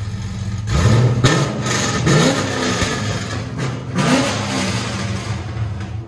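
Car engine with long-tube headers, high-flow cats, an X-pipe and straight pipes ending in turndowns, idling and then revved in about four quick throttle blips, starting just under a second in.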